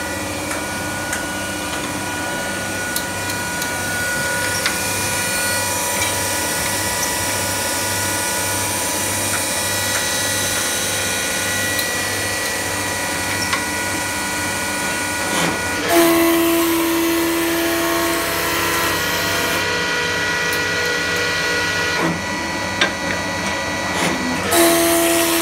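Hempel HH5 automatic wood-turning lathe running, its cutters working a spinning wooden blank, with a steady machine whine. A little over halfway through, a stronger steady hum sets in with a small jolt. It stops about six seconds later and returns near the end.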